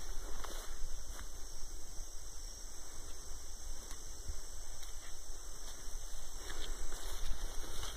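Footsteps and brushing through leafy undergrowth while walking, with scattered light crunches over an uneven low rumble of wind buffeting the microphone.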